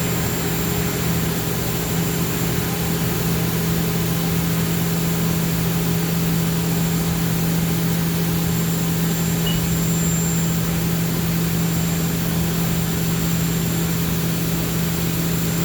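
CNC milling machine running with a steady hum and a constant low tone, not yet cutting while its tool is stepped into position above the part.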